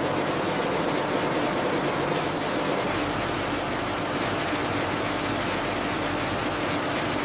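Steady machine noise of a chip production line's conveyor running, with no distinct strokes. About three seconds in the sound shifts, and a faint thin high whine and a low hum join it.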